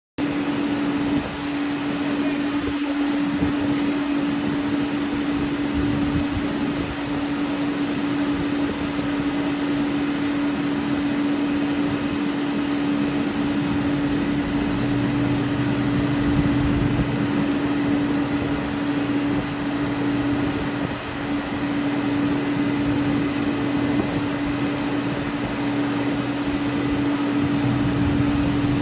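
Steady machinery hum with one constant tone throughout, joined by a lower steady tone about halfway through.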